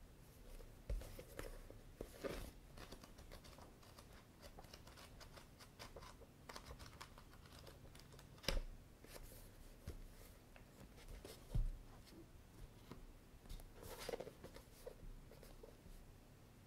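Pages of a paperback manga volume flipped by hand: a run of quick paper flutters and rustles. A few louder soft thumps come as the book is handled and set down on a wooden table.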